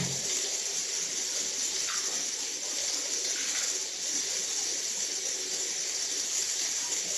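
Steady high hiss, like a film or video soundtrack's ambience, played back through a boAt Avante 1550 soundbar.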